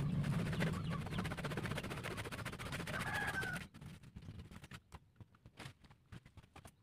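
Hand pruning saw rasping through the woody roots of a waru (sea hibiscus) tree. The sawing stops abruptly about halfway through, leaving only scattered light clicks and snaps.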